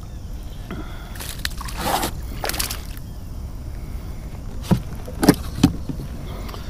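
A hooked largemouth bass splashing at the surface as it is drawn up and lifted out of the water, in bursts during the first few seconds. Then three sharp knocks close together, over a steady low rumble.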